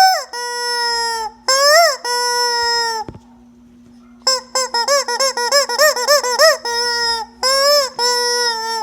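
Rubber chicken toy being squeezed, letting out loud squawking squeals: several long held ones, a quick run of short squeaks in the middle, then more long squeals.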